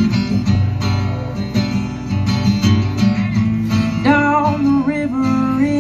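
Acoustic guitar strummed in a steady rhythm, with a voice coming in singing about four seconds in.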